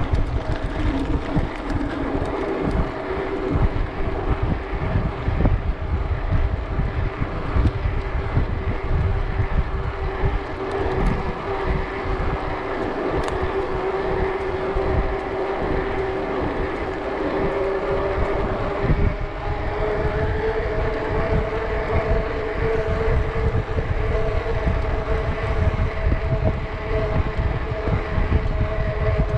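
Wind buffeting an action camera's microphone while riding a mountain bike, a constant low rumble. A steady drone runs underneath and rises slightly in pitch about two-thirds of the way through.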